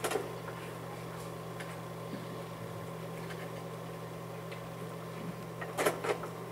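Steady low hum of room tone, with a brief cluster of sharp sounds about six seconds in.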